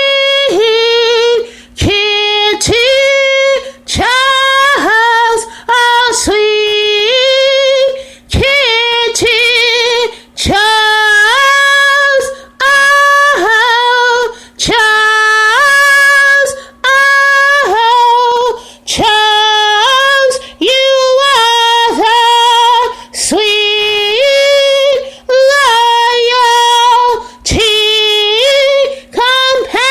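A woman singing unaccompanied: a string of held high notes, each about a second long, with short breaks between them.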